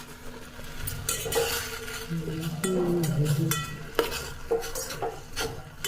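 A spoon stirring in a pan of tulsi leaves boiling in water, clinking against the pan about once a second.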